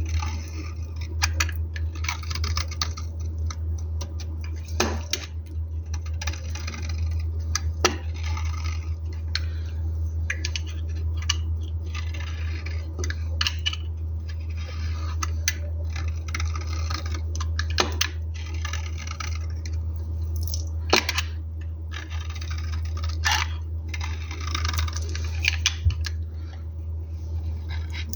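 A knife cutting through a bar of soap into cubes: repeated crisp scraping strokes, each a second or two long, with a sharp click now and then. A steady low hum runs underneath.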